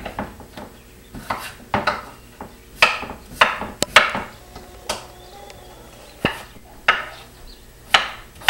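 Kitchen knife cutting potatoes on a wooden cutting board: about a dozen irregular knocks of the blade against the board.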